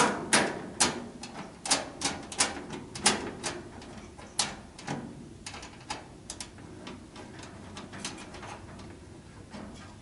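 Quick, irregular metal clicks and taps as a fan kit's thermal switch and its mounting hardware are handled and fitted under a gas fireplace's firebox. The clicks come thick for about five seconds, then thin out and grow fainter.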